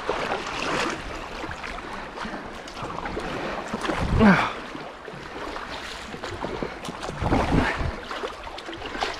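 Kayak paddling on a fast river: paddle strokes splashing and water rushing along the hull, with wind on the microphone. The splashing swells about every three to four seconds, loudest about four seconds in.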